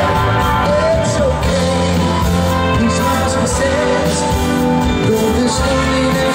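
A live rock band playing, with electric and acoustic guitars, electric bass and drums, and a sung melody line over them.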